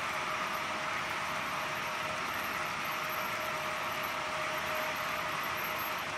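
HO scale model freight cars rolling past on the track, their wheels making a steady, even whir on the rails.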